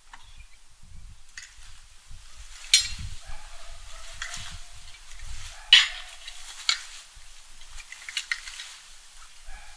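Garden rake scratching over dry leaves and grass in repeated strokes, with a few sharp knocks of material being handled, the loudest near the middle.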